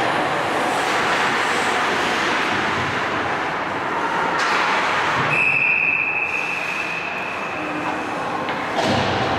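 Ice hockey skates gliding and scraping on the rink ice, a continuous hiss that swells sharply a couple of times as players stop or turn hard. A steady high tone sounds for about three seconds in the middle.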